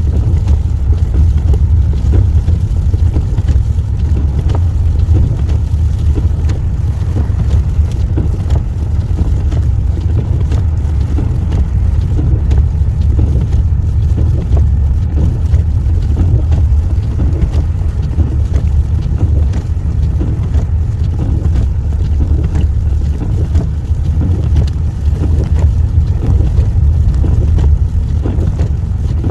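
Steady low rumble of a car driving on an unplowed snowy road, engine and tyre noise heard from inside the cabin.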